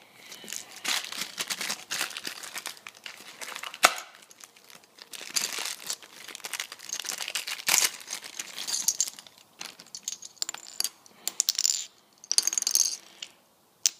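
Small clear plastic bag holding the model's engine parts, crinkling and rustling in irregular bursts as it is handled and opened by hand. Two sharp clicks of the small parts, the louder about four seconds in and another near eight seconds.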